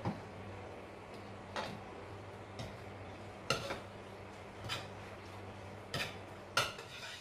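Metal spatula clinking and scraping against a nonstick wok while noodles are stirred: sharp irregular clinks about a second apart, over a faint steady low hum.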